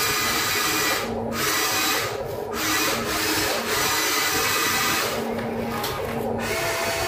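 Electric motors of a Huina radio-controlled toy excavator whirring in a high-pitched, drill-like way as it moves on its tracks in sand. The whirr stops briefly and starts again several times.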